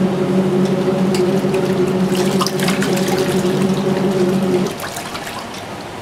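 Twin-tub portable washer's wash motor humming as the pulsator churns sudsy water and bedding, with splashing and sloshing. The motor cuts out about three-quarters of the way through, leaving the water sloshing: the pause between reversals of the agitation cycle.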